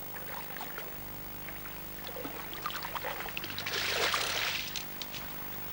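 A hooked grilse thrashing and splashing at the water's surface: small scattered splashes, then one big splash lasting about a second around four seconds in.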